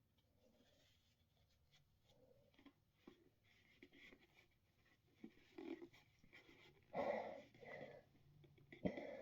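Breathing inside a kigurumi full-head mask, its inside wet with condensation: faint, soft breaths with a few small clicks, the two loudest breaths coming near the end.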